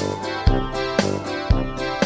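Music with a steady beat, about two beats a second, under sustained keyboard-like notes.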